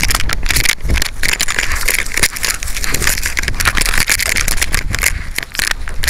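Dense, irregular rattling and knocking from a micro camera strapped to a running dog's harness, jolting with each stride, over low wind rumble on the microphone.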